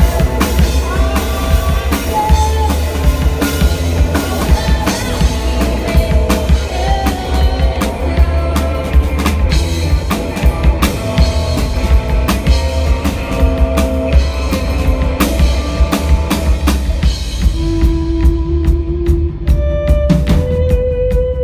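Rock band playing live, an instrumental passage: a drum kit keeps a busy beat with bass drum and snare over heavy bass, and a few long held notes ring out near the end.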